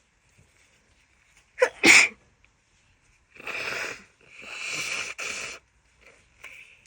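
A woman with a heavy cold sneezes once, sharply, about two seconds in. Then come two longer, wet, noisy blows that sound like nose blowing.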